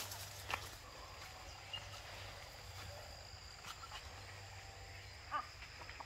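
Faint field ambience: a steady high insect drone with a few soft rustles of cane leaves and footfalls.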